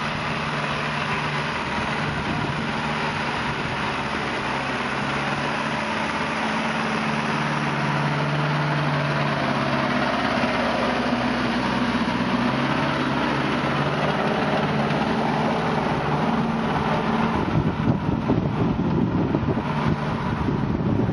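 Valtra tractor's diesel engine running steadily under load while it pulls a reversible mouldboard plough through the soil. Near the end, wind rumbles on the microphone over the engine.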